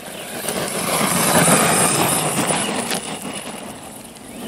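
Brushless HSP Wolverine 4x4 RC monster truck running at speed on 2S lipo over gravel. The noise of its motor and its tyres on the gravel swells to a peak about a second and a half in, then fades as it moves off.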